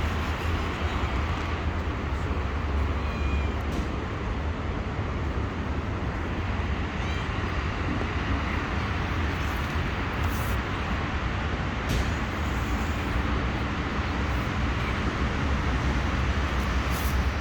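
Steady outdoor background noise, a deep rumble under a continuous hiss, with a couple of faint cat meows about three and seven seconds in.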